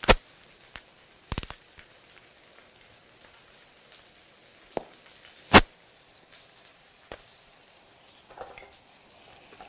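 About half a dozen sharp clinks and knocks of kitchen utensils and containers, the loudest a little past halfway, over a faint steady hiss from mushrooms simmering in a stainless-steel pan.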